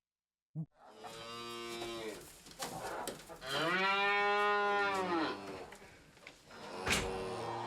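Cow mooing: a shorter moo, then a long drawn-out moo that rises and falls in pitch, with another moo starting near the end. A sharp click comes shortly before the last moo.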